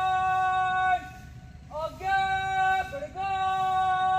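Slow singing in long, steady held notes, three of them, each about a second long with short breaks between.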